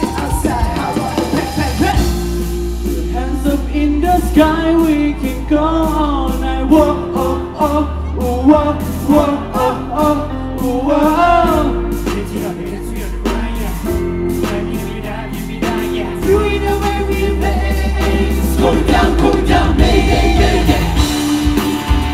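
Live pop-rock performance: a male vocal group singing over a band of electric guitars, drums and bass, the sung melody bending up and down in short phrases.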